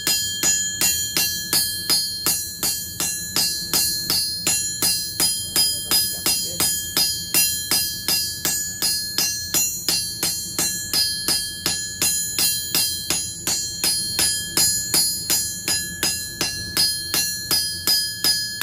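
Hand hammer striking hot steel on an anvil in a steady rhythm of about three blows a second, each blow ringing brightly. The blows are smoothing marks and scabs out of the surface of a forged hammer head.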